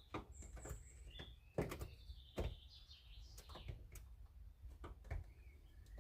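Faint bird chirps, with scattered light knocks and clicks of handling.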